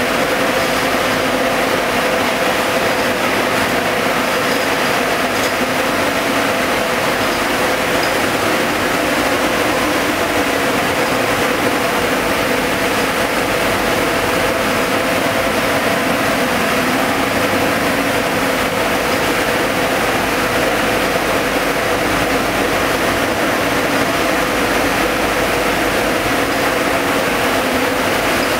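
JWF1562E ring spinning frames with compact spinning units running in a mill: a steady, loud mechanical din with a constant hum.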